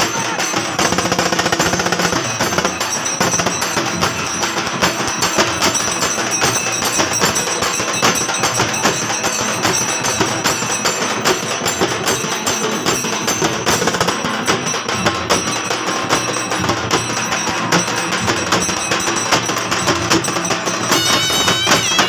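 Fast, continuous drumming in a steady rapid rhythm, with a jingling rattle over it.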